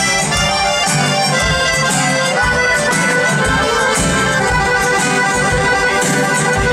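Live band music led by a piano accordion, with acoustic guitar strumming and a steady kick-drum beat underneath.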